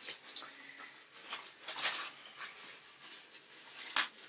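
Faint, scattered clicks and rustles of small parts and packaging being handled, with a sharper click about four seconds in.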